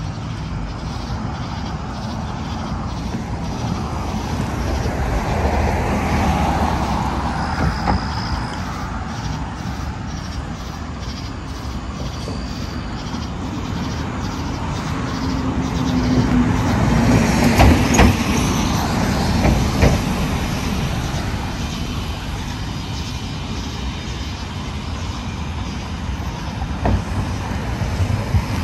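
Road traffic going by on a busy street. It swells as vehicles pass about six seconds in, and again, loudest, around seventeen seconds in.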